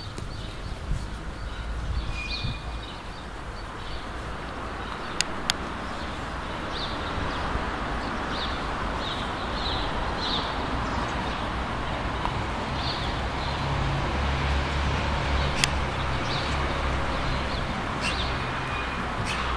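Outdoor garden ambience: small birds chirping in short repeated notes over a steady rushing background that slowly grows louder, with a few sharp clicks.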